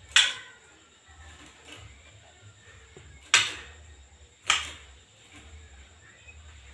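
Three short, sharp, noisy bursts from a white-rumped shama (murai batu) moving about its cage: one right at the start, then two more about three and a half and four and a half seconds in.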